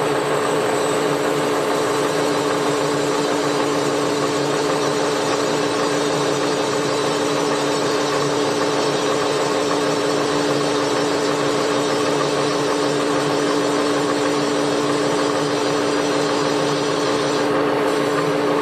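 Milling machine spindle turning a 5 mm drill bit at about 450 RPM, cutting into an air-cooled Volkswagen engine case half to deepen the main bearing dowel pin hole. It gives a steady machine hum with a constant low tone throughout.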